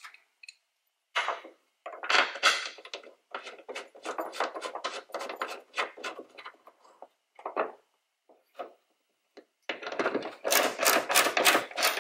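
Metal hood lift support bracket and its bolt being handled and fitted against the underside of a car hood: clusters of clicks, rattles and scrapes, then a few single ticks, and a dense run of clicks near the end as a wrench goes onto the bolt.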